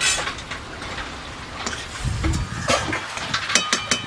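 Squash curry cooking in a metal karahi over a wood fire: a steady hiss with scattered clicks, then a spatula scraping and clinking against the pan in the last second.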